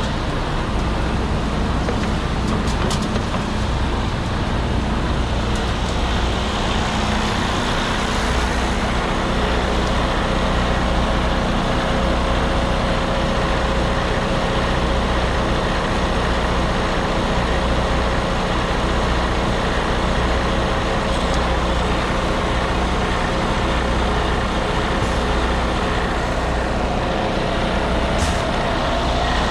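Diesel engine of a Terex FD4000 front-discharge concrete mixer truck running steadily, a continuous low drone with no change in pitch.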